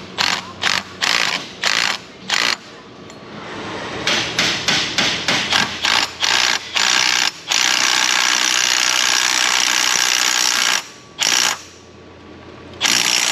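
Small cordless impact gun hammering in a series of short trigger bursts, then one unbroken run of about three seconds. It is driving the bolt that presses a power steering pump pulley onto the pump shaft.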